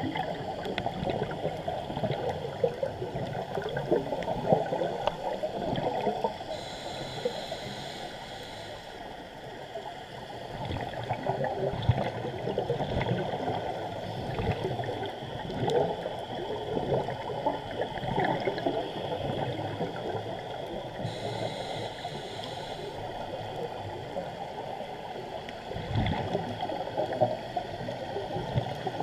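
Scuba diver breathing through a regulator, heard underwater through the camera's waterproof housing: exhaled bubbles gurgling and crackling, with a hiss of inhaled air twice, about seven seconds in and again about twenty-one seconds in.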